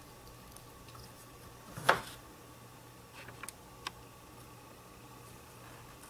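Handling noise: one sharp knock about two seconds in, then a few light clicks, over a faint steady hum.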